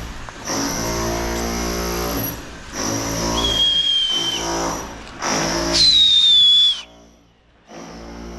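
A motor-driven machine running in several spurts of about two seconds each, with a high squeal twice. The second squeal falls in pitch. The machine cuts off abruptly about seven seconds in and starts again shortly before the end.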